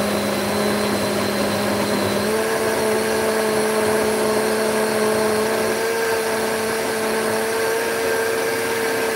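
Small personal blender's motor running, packed full of a thick green smoothie. It makes a steady hum that steps up in pitch about two seconds in and then holds.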